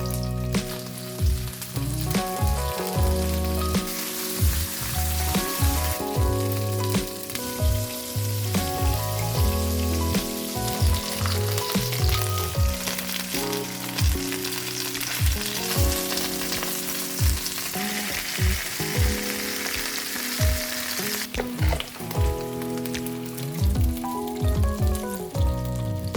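Food frying and sizzling in a hot pan, the hiss strongest through the middle of the stretch, over background music with a steady beat.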